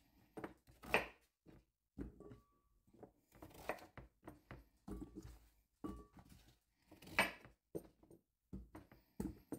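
Chef's knife cutting raw peeled acorn squash slices in half, each cut ending in a knock on a wooden cutting board. The cuts come irregularly, one or two a second.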